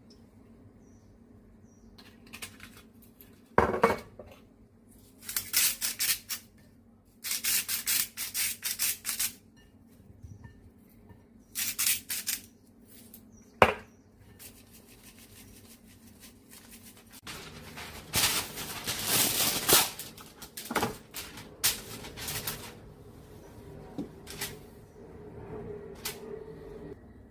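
Olive oil sprayed over potato slices in three or so short hissing bursts, with sharp knocks of a dish between them. Later comes a longer stretch of rustling and clatter.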